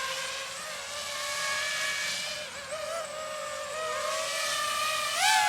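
DJI FPV drone's propellers whining in flight, the pitch wavering as it manoeuvres. About five seconds in the whine climbs sharply in pitch and loudness, then falls away.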